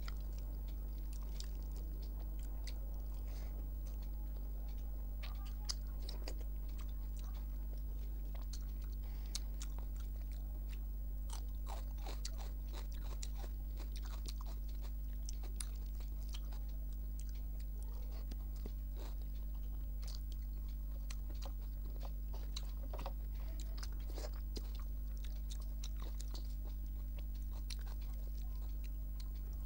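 Close-miked eating sounds: a person chewing food, with scattered crunchy bites and small mouth clicks, over a steady low electrical hum.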